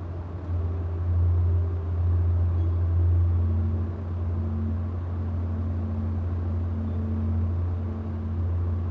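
A steady low rumble with faint humming tones that shift and come and go over it.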